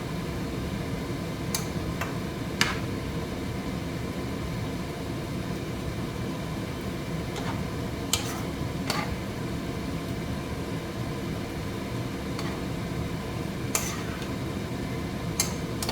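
A utensil clinking against a cooking pot a few times at scattered moments, over a steady low kitchen hum.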